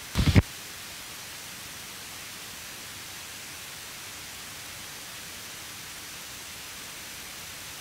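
Steady hiss of background noise in the recording, with one brief loud bump just after the start.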